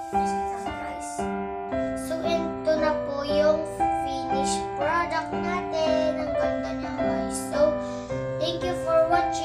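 Background music: piano chords and notes, joined about two seconds in by a high voice singing.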